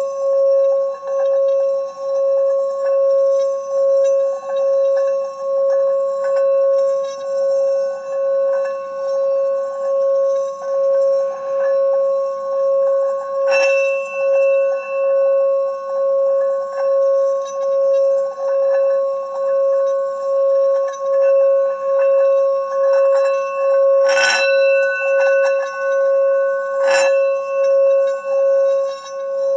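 Tibetan singing bowl sounding one steady ringing tone with overtones that swells and fades about once a second. Three sharp strikes land partway through and near the end.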